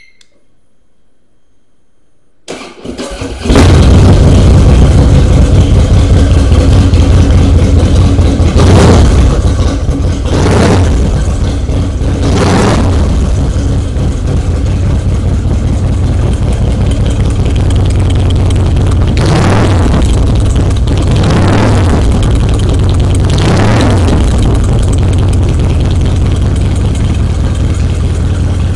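Harley-Davidson FXSB Breakout's 1690 cc Twin Cam V-twin, with a Vance & Hines exhaust, cranked on the starter and catching about three seconds in, then idling loudly. It is revved briefly six times, from about eight seconds in until a few seconds before the end, between stretches of steady idle.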